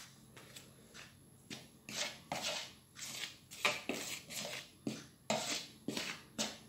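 A hand mixing flour and other dry ingredients in a plastic bowl: a run of short, irregular rustling and scraping strokes, about three a second, starting about a second and a half in.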